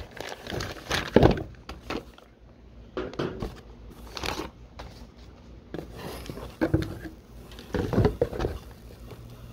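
Plastic wrapping crinkling and a cardboard box rustling as a packaged brake caliper is unwrapped by hand, with a few short knocks.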